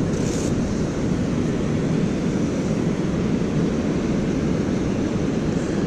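Steady, even rush of river water pouring over a dam, a constant low roar with no breaks.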